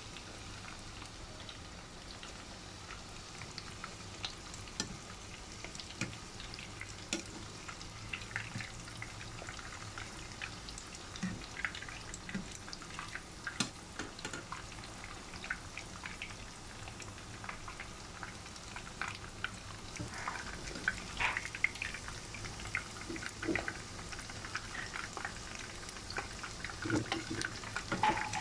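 Breaded pork chops deep-frying in hot oil in a pan: a steady sizzle with scattered crackles and pops, which grow busier later on. Now and then a utensil stirs and turns the pieces in the oil.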